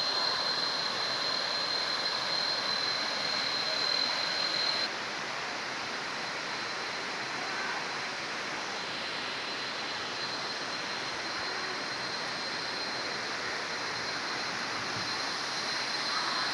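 Waterfall rushing: a steady noise of falling water, with a thin high-pitched tone over it that is louder for the first five seconds. The sound gets slightly quieter at about five seconds in.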